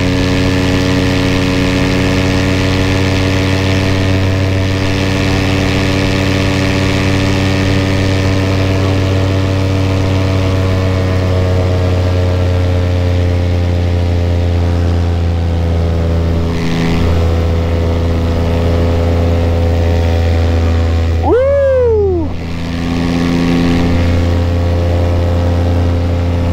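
Paramotor engine and propeller running steadily in flight, a constant droning note. About 21 seconds in the pitch makes a quick rise and fall and the sound dips briefly before settling back.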